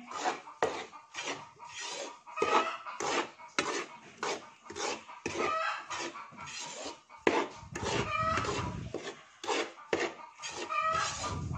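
Metal ladle scraping and stirring toasting flour in a wide metal pan, in quick repeated strokes about two a second. The flour is kept moving so it browns without burning.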